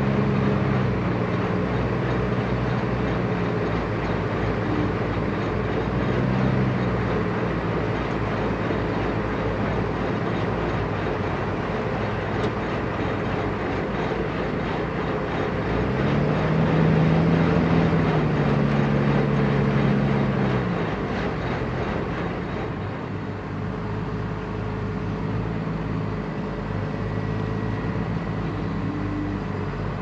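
Diesel engines of several heavy farm tractors running under load through deep mud, with a continuous mechanical drone. One engine revs up and back down again about two-thirds of the way through.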